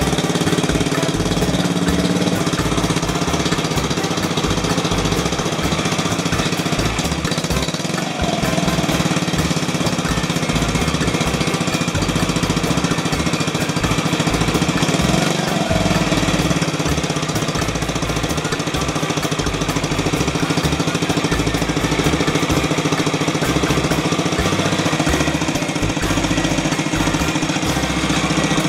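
Yamaha Majesty 125 FI scooter's single-cylinder four-stroke engine running steadily at low speed through a polished aluminium aftermarket muffler, a fast low thumping from the exhaust under a steady rush.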